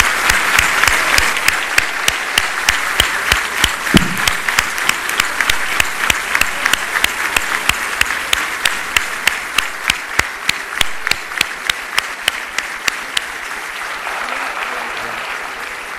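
Large audience applauding, with one nearby person's sharp claps standing out at about three a second; the applause slowly dies down near the end.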